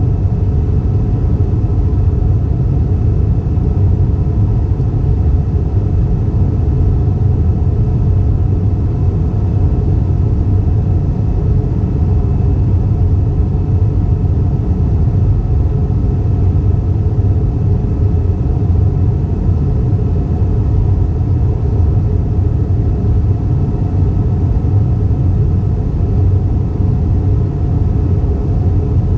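Steady low rumble of engine and airflow noise inside the cabin of an Airbus A320 in flight, with a few faint steady tones above it.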